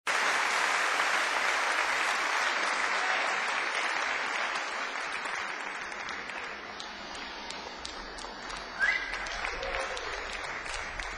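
Audience applause that slowly dies down, with one short shout from the crowd about nine seconds in. It is the applause at the start of a live recording.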